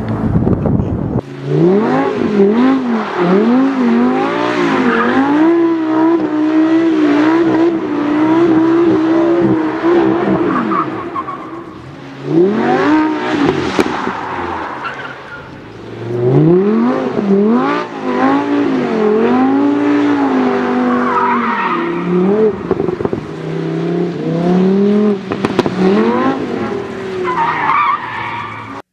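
Lamborghini supercar engines, a Huracán's V10 among them, revving hard with the pitch swinging up and down over and over as the cars slide through drifts, with tyre skidding noise underneath.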